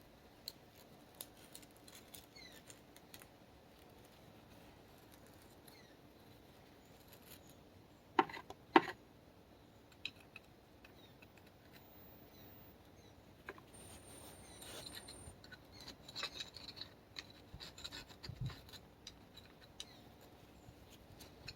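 Hand tools working on a tractor's front axle: scattered light clicks, two sharp clanks about eight seconds in, then a stretch of scraping and rubbing in the last third.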